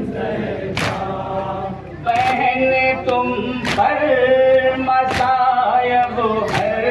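Men chanting an Urdu noha (Muharram lament) together in unison, growing louder about two seconds in, with a sharp slap of matam (hands striking chests) about every second and a half.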